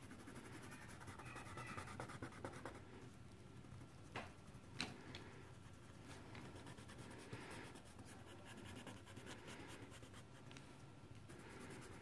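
Faint scratching of a red coloured pencil on paper as it colours a line along a maze, in several stretches, with two faint clicks a little past four seconds in.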